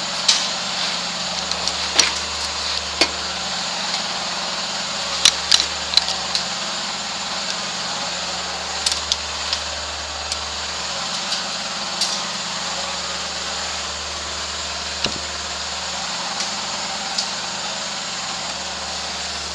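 Laundry machine running with a steady low hum whose deepest part comes and goes every few seconds, with scattered light clicks and knocks.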